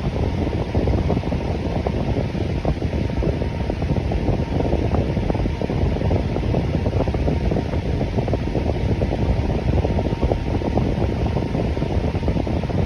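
Electric fan running steadily: an even, low rushing whoosh of moving air.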